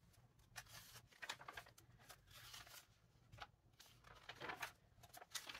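Faint rustling of glossy magazine pages being turned by hand, in a few short swishes.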